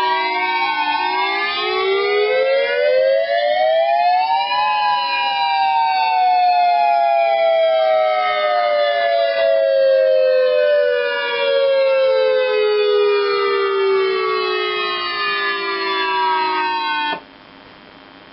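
Electronic outdoor warning sirens, an Ultra Voice and a Siretone, sounding a wail tone together: several loud tones with slow rises and long falls, out of step with one another. About 17 seconds in the wail cuts off abruptly when the activation is cancelled.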